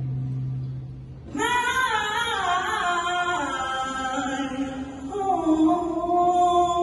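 Mixed school choir singing. A held low note dies away about a second in, then the voices come back in loudly on a moving phrase and settle into held notes near the end.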